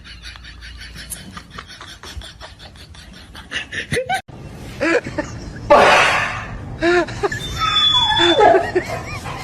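A fast, even run of clicks for about four seconds, then after a sudden break people laughing, with one loud, harsh noisy burst near the middle.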